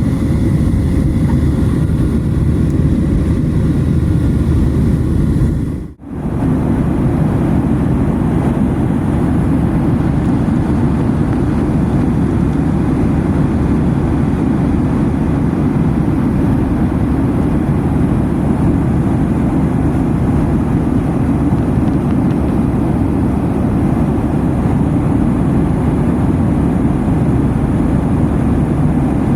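Steady low rumble of a moving vehicle heard from inside, dropping out briefly about six seconds in.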